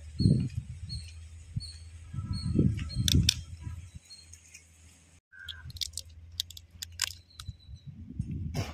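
A cooked crab's shell and claw being cracked and pulled apart by hand, giving sharp snaps and crackles in scattered clusters over low handling bumps. A bird chirps about every half second in the first couple of seconds.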